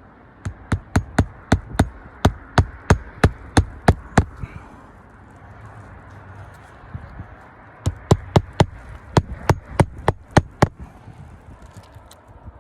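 A hammer striking in two quick runs of a dozen or so sharp blows, about three a second, with a pause in between: nails being driven during a roofing repair test.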